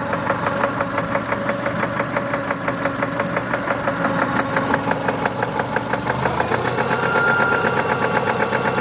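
A 1999 Subaru Legacy's EJ22 2.2-litre flat-four engine running with a steady, rhythmic knock at about three a second, a little louder after about seven seconds. The owner takes it for rod knock that grew out of what he first thought was piston slap.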